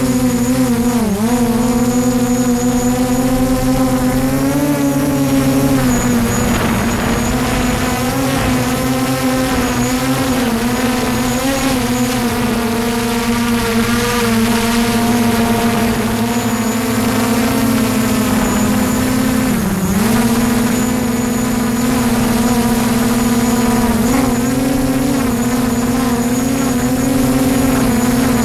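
DJI Mavic quadcopter's motors and propellers whining steadily in flight, a loud hum with many overtones. The pitch dips briefly about a second in and twice more near the end as the motors ease off and speed up again.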